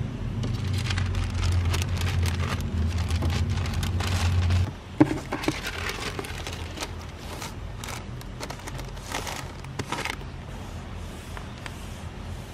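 Thin white wrapping paper rustling and crinkling as hands fold it around a boxed gift, with a sharp tap about five seconds in. A low hum runs under the first half and stops suddenly.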